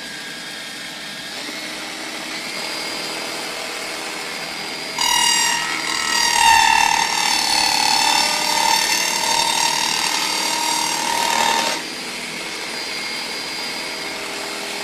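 Motor-driven Lego table saw running with a steady whir. From about five seconds in, it gets much louder for some seven seconds as a whine whose pitch wavers, then drops back to the steady whir.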